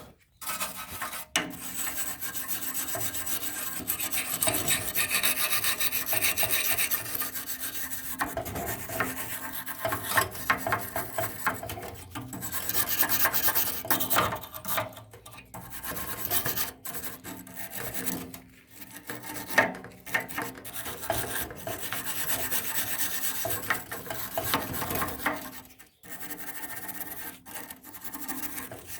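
Scrubbing and rubbing a lawn mower's wheel mounting surface clean, a scratchy rasping sound in repeated strokes with a few short pauses.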